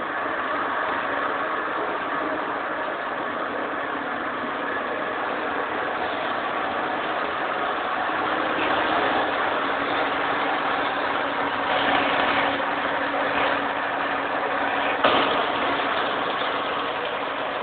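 Steady din of machine tools such as milling machines and lathes running, with a faint steady hum joining about halfway through.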